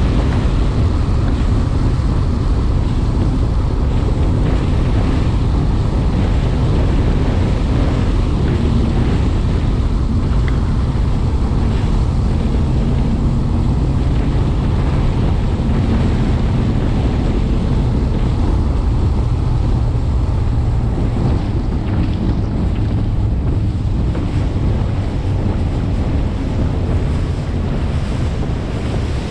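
Bass boat running across open water: heavy wind buffeting the microphone over the rush of water along the hull and the steady drone of the outboard motor, easing slightly near the end.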